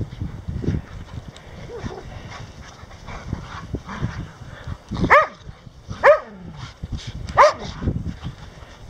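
A dog barking three times, about a second apart, while the dogs romp and chase each other.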